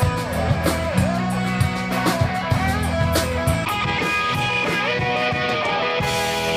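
Live rock band playing: electric guitar with bending lead notes over bass guitar and a drum kit keeping a steady beat, with a cymbal ringing out near the end.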